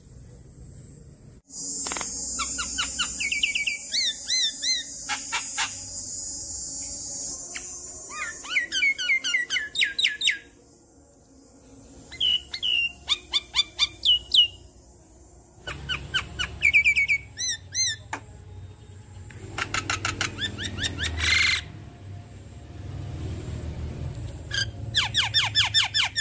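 Javan myna calling: bursts of fast, repeated chirps and whistled gliding notes, broken by short pauses. A harsh hiss runs under the calls from about two seconds in to about seven seconds in.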